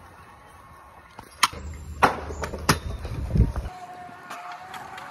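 Stunt scooter wheels rumbling over a concrete skatepark bowl, with several sharp clacks of the scooter striking the concrete starting about a second and a half in.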